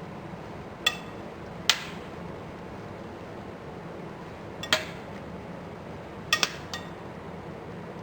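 Sharp metallic clinks of cookware against a Saladmaster titanium-steel pot: about six ringing taps spread through, two in quick succession about six seconds in, over a steady low background.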